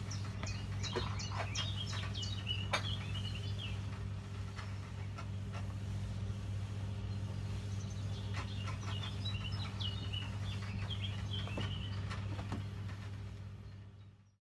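Small birds chirping in quick flurries, one starting right away and another past the middle, over a steady low hum, with a few light clicks.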